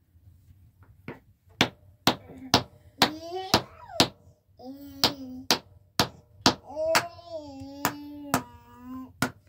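Hard fruit pits being cracked open by repeated sharp blows, about two a second, with a drawn-out voice over the knocks.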